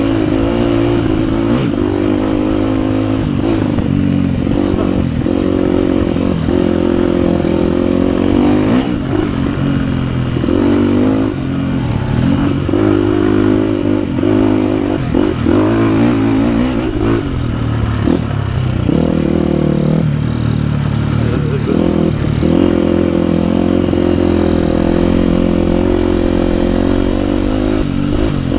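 2007 KTM 250 EXC-F's single-cylinder four-stroke engine running under way, holding steady for stretches. Through the middle it goes through a run of quick throttle drops and pickups, its pitch falling and rising each time.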